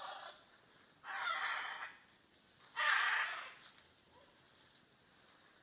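Macaws squawking: a harsh call fading at the very start, then two longer, harsh calls about one and three seconds in.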